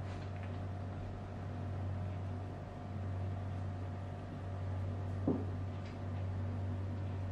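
Domestic cat purring steadily close by, the hum swelling and easing about every second and a half with its breathing. A brief squeak about five seconds in.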